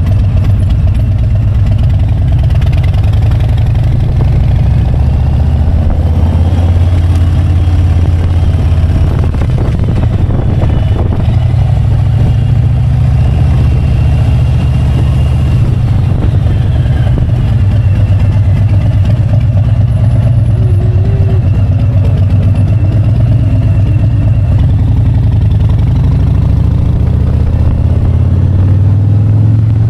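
Harley-Davidson touring bagger's V-twin engine running at low road speed, its low rumble rising and falling in pitch a few times with the throttle.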